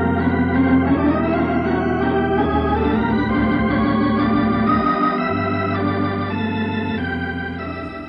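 Organ music bridge marking a scene change in a radio drama: held chords over a sustained bass, shifting a few times and fading out near the end.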